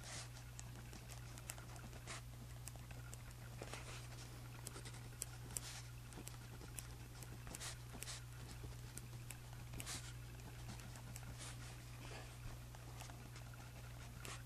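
Pen writing on journal paper: faint scratchy strokes with occasional small clicks, irregular and close up, over a steady low hum.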